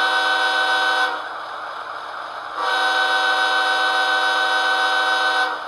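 Long-horn sound of an Athearn Genesis ES44DC model locomotive's DCC sound decoder, played through the model's onboard speaker. It is a steady chord-like diesel locomotive horn blast that ends about a second in, then a second, longer blast of about three seconds, with the decoder's engine idle running quietly between.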